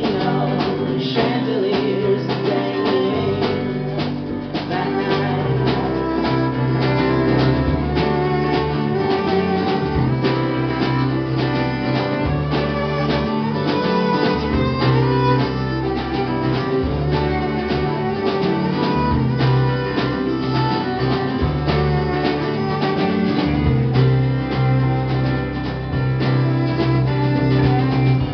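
Live indie-folk band playing an instrumental passage: fiddle over strummed acoustic guitar, with electric bass and a steady drum beat.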